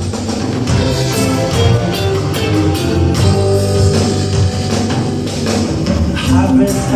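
Instrumental intro of a band playing live: electric guitar, a heavy bass line and a drum kit keeping a steady beat, with no vocals.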